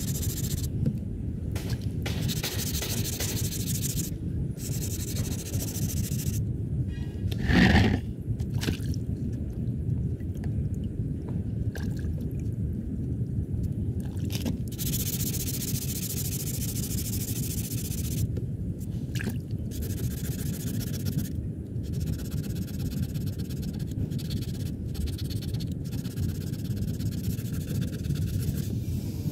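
Scraping and rubbing on the car's front bumper, as in sanding it down, coming in stretches of a few seconds each, with one brief louder sound about eight seconds in.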